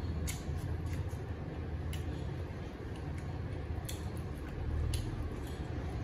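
Eating sounds: people eating rice and curry with their fingers, with chewing and a few short, sharp clicks spaced a second or two apart. A low steady hum runs underneath.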